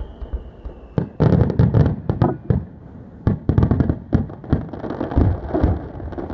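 Aerial firework shells bursting: a dense series of loud bangs and crackling reports in quick clusters, starting about a second in and going on to the end.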